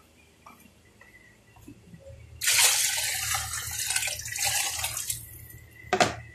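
Water poured from a plastic bowl into a steel cooking pot of chicken broth, splashing for about three seconds, followed by a short knock near the end.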